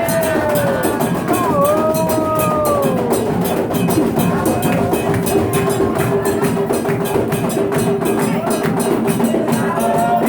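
Music driven by fast, dense percussion strikes. A voice sings briefly near the start, and a long held note runs through most of the rest.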